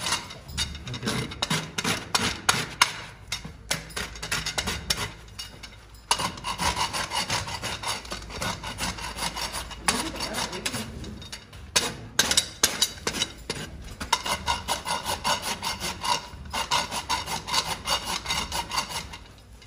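Steel farrier's hoof rasp filing a horse's hoof in quick, repeated rasping strokes, several a second. The rasping breaks off briefly about six seconds in, then carries on.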